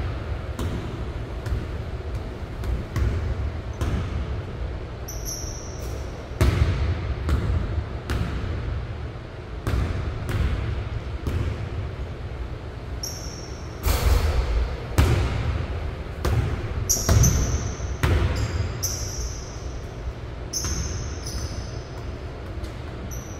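A basketball bouncing on a hardwood gym floor: sharp, echoing thuds at irregular intervals as it is dribbled, shot and rebounded. Short high sneaker squeaks come in between, most of them in the second half.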